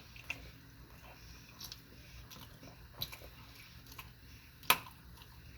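A person chewing a mouthful of sushi, with a few faint clicks and one sharper click about four and a half seconds in.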